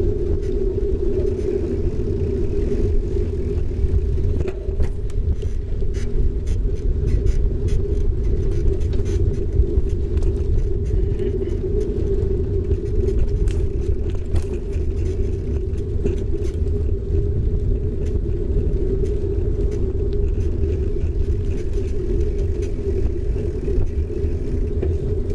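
Bicycle rolling on asphalt, heard through a camera mounted low on the bike: a steady rumble of the tyres and road vibration, with scattered small rattling clicks from bumps in the surface.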